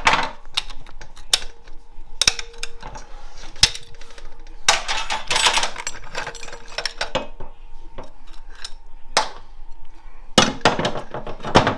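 Metal parts of a 4L65E automatic transmission clinking and knocking against each other and the bench as it is taken apart, with scattered sharp knocks and two denser bursts of clattering about five and ten seconds in.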